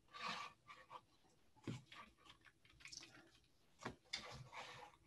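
Near silence: room tone with a few faint scattered clicks and short soft rustles.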